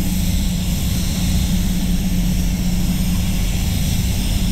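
Avalon Beyond Nova gravity-feed spray gun hissing steadily with compressed air as it lays down a test spray pattern, over the constant hum of the paint booth's airflow.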